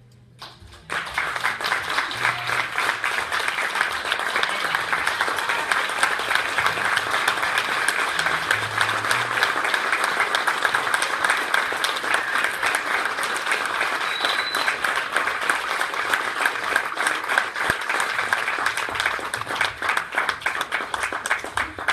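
Congregation applauding: a dense stretch of clapping that starts about a second in, holds steady, and thins into scattered claps near the end.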